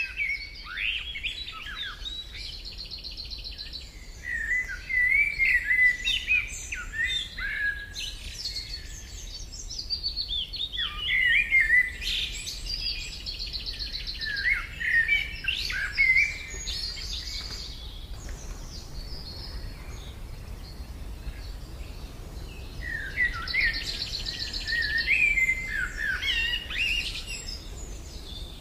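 A songbird singing a varied, high-pitched song of chirps, quick glides and buzzy trills in phrases with short pauses.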